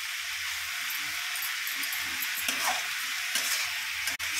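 Minced meat and liver frying in hot oil in a wok over high heat, sizzling steadily while a spatula stirs and scrapes through it. The sound cuts out for an instant near the end.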